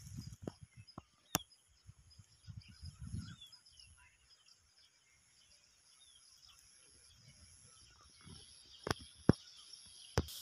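Quiet rural field ambience: faint scattered bird chirps and a steady high insect trill, pulsing evenly. Low rumbles come and go, and a few sharp clicks fall about a second in and again near the end.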